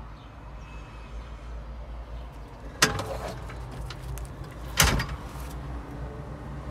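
Two sharp clunks about two seconds apart, with a few lighter clicks, from the tractor's pneumatic driver's seat being handled and swivelled, over a steady low hum.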